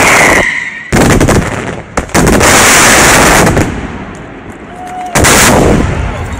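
Fireworks display: a quick run of loud shell bursts, with a short falling whistle at the start, a dense barrage of explosions lasting over a second about two seconds in, and one more loud blast about five seconds in.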